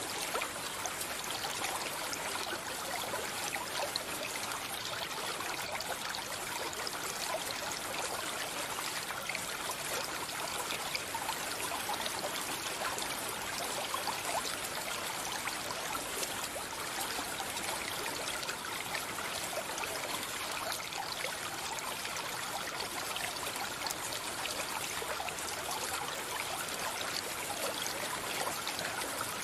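Running water of a stream, a steady, even rush with no change in level.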